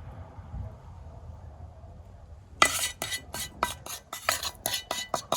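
Metal utensil clinking and scraping against a pan while sautéed vegetables are spooned out. A quick, irregular run of about a dozen sharp clinks starts about two and a half seconds in.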